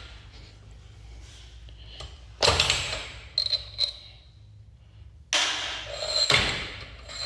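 Metal scraping and knocking as a stuck part is forced along a garage door torsion tube: two loud scrapes, about two and a half and five and a half seconds in, with a few sharp clicks between.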